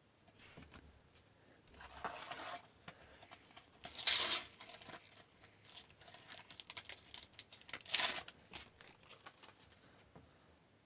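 Sticker pack wrapper torn open and handled, with crinkling and rustling; the loudest tear comes about four seconds in, another near the eight-second mark, with small clicks of stickers being shuffled in between.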